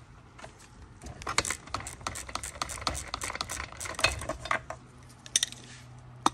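Ratchet wrench clicking as it unscrews the spark plug from a string trimmer engine: a few seconds of quick, irregular metal clicks, then a couple of sharper metal clinks near the end.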